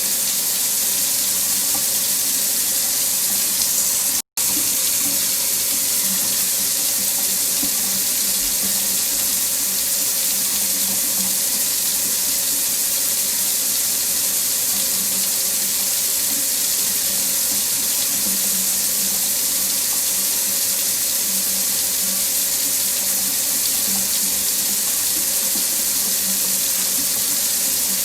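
Faucet running steadily into a sink, an even, continuous hiss of falling water. It cuts out completely for an instant about four seconds in, then carries on unchanged.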